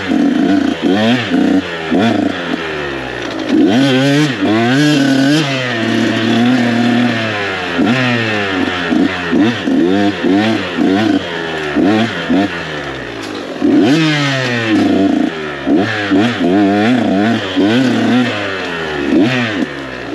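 KTM 125 SX single-cylinder two-stroke dirt bike engine being ridden, the throttle opening and closing again and again so the revs climb and fall every second or so, with a couple of longer drops to low revs.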